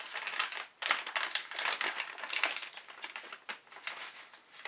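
Plastic baby-wipe pack crinkling and rustling as a wipe is pulled out: a quick, irregular run of crackles.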